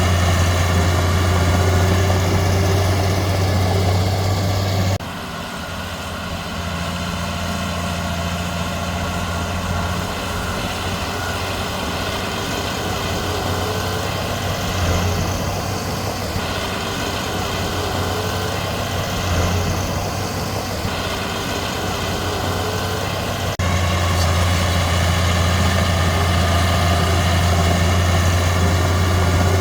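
Heavy diesel engine running steadily with a low, even hum. The sound drops abruptly about five seconds in and jumps back up near the end.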